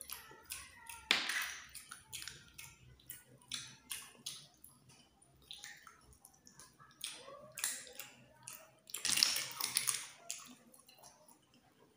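Close-up eating sounds of snails cooked in coconut milk: wet slurps and sucking as the meat is drawn from the shells, mixed with small sharp clicks. The loudest slurps come about a second in and again near the end.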